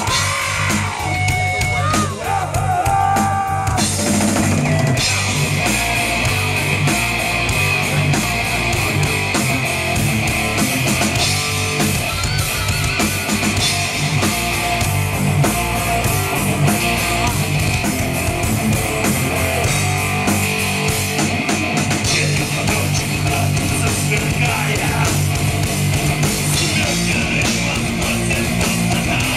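Heavy metal band playing live: distorted electric guitar over bass and a drum kit. In the first few seconds a few sliding notes stand out over the drums, then the full band, cymbals included, comes in about four seconds in.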